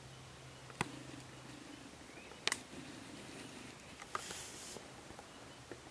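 Quiet woods with three or four sharp clicks a second or two apart, a brief soft hiss a little past the middle, and a faint low hum that stops about a second and a half in.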